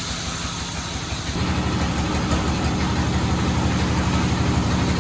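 Sawmill engine running with a steady, even pulse. About a second and a half in, it grows louder and fuller and holds there.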